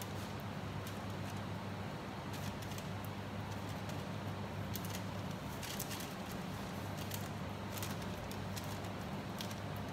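A steady low hum with faint, scattered light ticks and rustles as fingers pinch and crimp the edge of a folded dough on baking paper.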